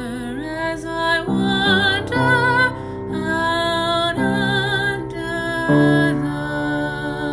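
A woman singing with vibrato over instrumental accompaniment. The chords change every second or so, then settle about six seconds in onto a long held note.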